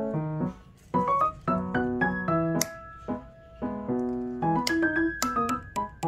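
Background piano music: a light melody of short notes.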